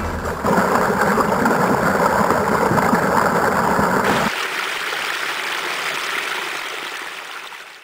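Small woodland stream rushing over rocks: a steady noise of running water. About four seconds in the deeper part of the sound drops away abruptly, leaving a thinner hiss that fades out near the end.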